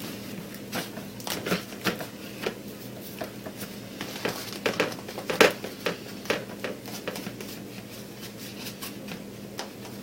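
Irregular light taps, clicks and scrapes of hands working and packing fatwood Maya dust (fine resinous pine shavings) down compactly, over a faint steady hum.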